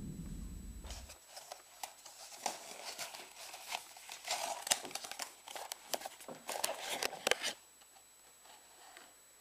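Cardboard phone box and paper packaging handled: a run of rustles, crinkles and clicks, busiest in the middle and stopping a couple of seconds before the end. A low rumble dies away about a second in.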